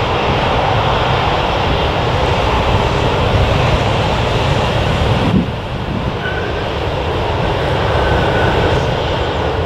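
Airliner engines running loudly as an aircraft passes at the airport, a steady roar with deep rumble. About five seconds in the higher hiss drops away suddenly and the roar goes on lower.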